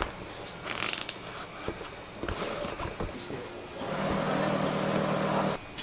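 Small clicks and rustling as an umbrella's metal ribs and fabric canopy are handled during a repair. Near the end a steady machine hum sets in for nearly two seconds and cuts off suddenly.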